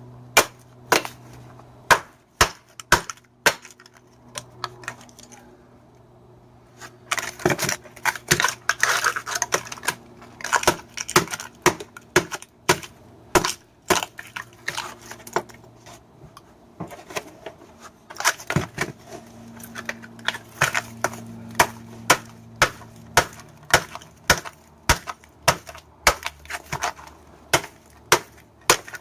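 Repeated sharp hammer strikes breaking apart a microwave oven transformer, coming irregularly and often several a second, with a denser rattling stretch about seven seconds in. A faint steady hum runs underneath.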